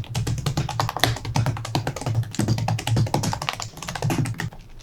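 Gateron yellow mechanical key switches being pressed into a keyboard's plate, a fast run of many sharp plastic clicks and snaps.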